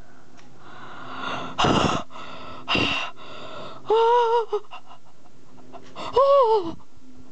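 A person gasping in excitement twice, then letting out two high-pitched wordless cries that rise and fall, after pulling a rare trading card.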